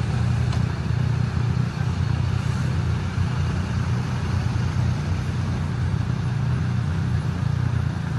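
Several motorcycle engines idling together in a steady low rumble.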